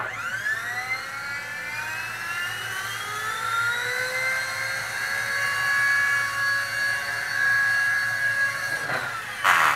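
V922 six-channel micro RC helicopter's electric motors and rotors spinning up with a rising whine as it lifts off, then a steady whine with small shifts in pitch as it hovers and flies. About nine seconds in the whine falls away, followed by a brief loud noisy burst.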